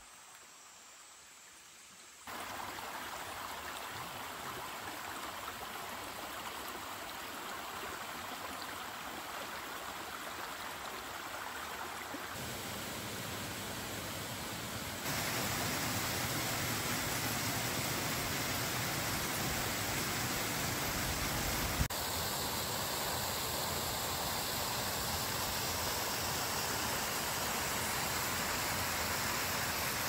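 Rushing water of a shallow rocky stream and its small cascade: a steady rush that begins suddenly about two seconds in and steps up louder twice, at about twelve and fifteen seconds.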